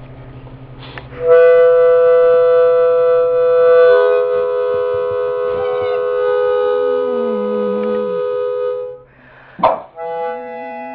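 Harmonica playing long held chords, starting about a second in, with a hound dog howling along in wavering, falling tones in the second half. A brief loud sound cuts in near the end before a new chord starts.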